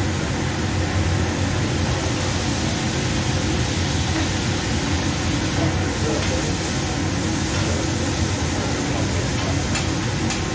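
Diced steak sizzling on a teppanyaki griddle over a steady low rumble, with a couple of light clinks of the metal spatula on the griddle near the end.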